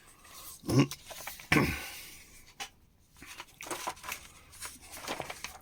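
Paper pages of an old magazine rustling and being handled and turned, in several irregular short rustles.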